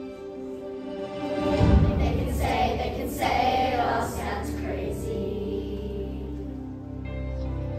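Children's choir singing a song together with an instrumental accompaniment, growing louder about a second and a half in as a low bass part enters.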